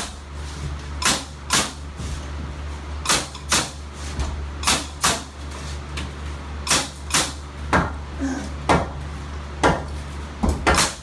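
Nails being driven into wood framing: repeated sharp strikes, often two in quick succession, about one to two a second, over a steady low hum.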